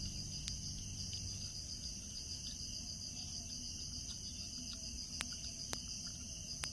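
Steady high-pitched chorus of insects chirring outdoors, with a few faint sharp clicks scattered through it.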